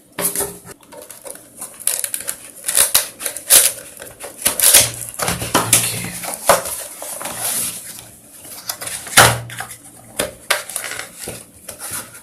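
A tightly packed cable box being pried open and its packaging handled by hand: an irregular run of scraping, crinkling and sharp clicks.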